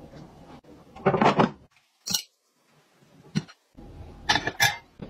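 Kitchenware being handled: a few short clatters and clicks, one louder clatter about a second in and a quick run of clicks near the end, with a quiet gap in between.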